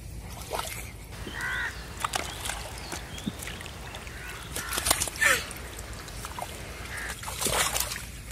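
Wet mud and shallow water splashing as a hoop net is pushed and dragged through it, with a few short calls from birds.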